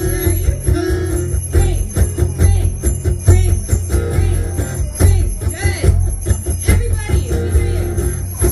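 Hundreds of bicycle bells, of three kinds pitched in one key, ringing together as a mass bell orchestra over music.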